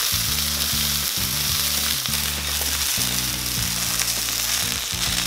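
Chicken wings sizzling in a frying pan as the fat renders out of the skin, a steady hiss, with low background music notes underneath.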